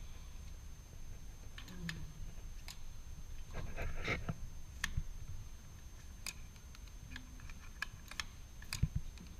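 Plastic hotel key card being pushed into and pulled out of a door's card-slot lock, making scattered light clicks and taps.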